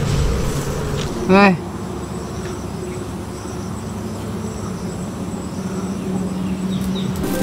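A steady buzzing hum. About a second and a half in there is one brief, louder sound with a bending pitch.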